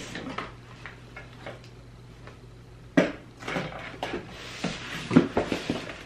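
Scissors and hands working at a cardboard shipping box: scattered small clicks and scrapes, then a sharp click about halfway through and a run of clicks and knocks, the loudest near the end.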